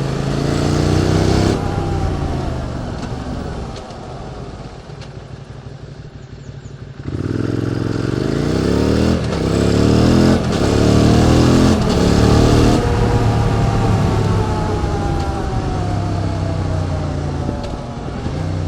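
QJ Motors SVT650X V-twin engine breathing through an Arrow Racetech slip-on silencer while ridden. The engine note falls off with the throttle closed for a few seconds, then about seven seconds in it accelerates hard, the revs climbing and dropping through three quick upshifts, before settling into a steady cruise.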